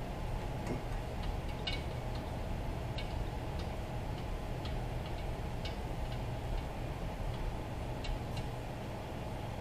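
Scattered light metallic clicks, irregular and about one or two a second, as cylinder head bolts and their washers are turned in by hand. A steady low hum runs underneath.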